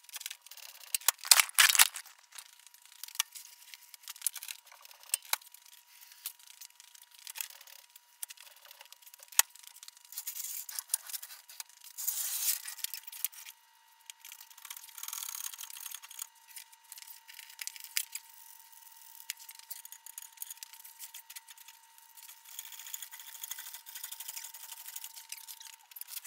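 Scattered sharp clicks and knocks with stretches of scraping, rustling noise, the loudest knocks about a second and a half in, over a faint steady high whine that stops near the end.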